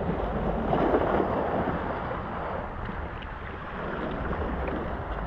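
Wind rushing on the microphone over sea waves washing against jetty rocks, with a louder gust about a second in.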